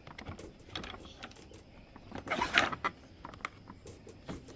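Hard plastic play-kitchen parts clicking and knocking as they are handled and fitted together, with a louder rattle about two and a half seconds in.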